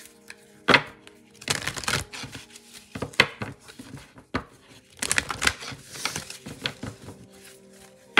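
A deck of Moonology Oracle cards being shuffled by hand: several short bursts of crisp card rustling and slapping with brief pauses between them.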